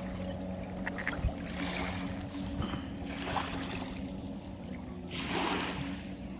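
Jet ski engine running with a steady, even drone.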